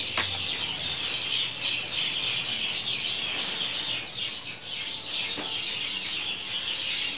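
A flock of small birds chirping continuously in a dense, busy chatter, with a couple of brief clicks from handling about the start and again about five seconds in.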